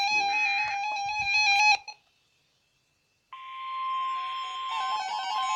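NOAA Weather Radio emergency alert. First come short buzzy bursts of the SAME digital header data under a beeping electronic melody, which cut off about two seconds in. After about a second of silence, the steady single-pitch weather radio warning alarm tone begins, with the beeping melody coming back in near the end.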